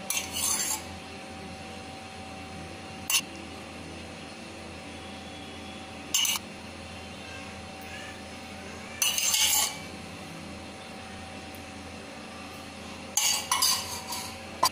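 Steel spoon clinking as sesame oil is spooned into the wells of a hot paniyaram pan: short sharp metallic clinks every few seconds, with a longer rattle about nine seconds in and a quick cluster near the end, over a steady faint hum.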